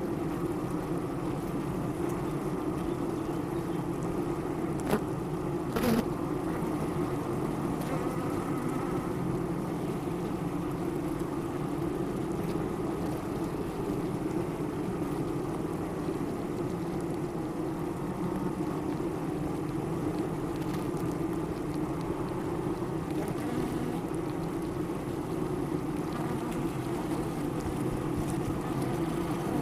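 Honey bees humming at a hive, a steady, even drone, with two short knocks about five and six seconds in.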